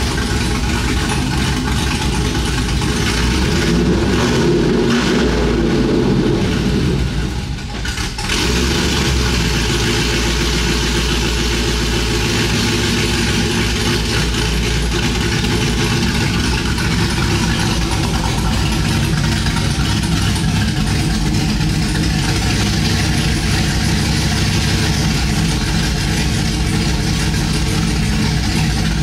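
Cammed 5.3-litre V8 of a Chevy Silverado running loud through freshly fitted long-tube headers with no exhaust pipe behind them. It swells for a few seconds about four seconds in, dips briefly near eight seconds, then settles into a steady idle.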